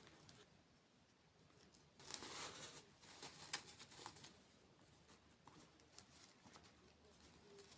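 Faint close-up eating sounds from dessert mukbang: soft crackling and crunching, with a denser stretch about two seconds in and a sharp click a little later.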